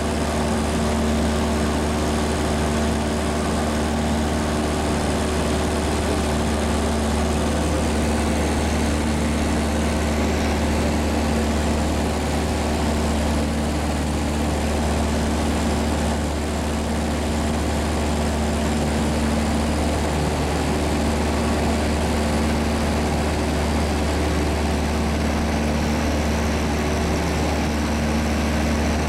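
Light propeller airplane's engine and propeller droning steadily, heard from inside the cabin.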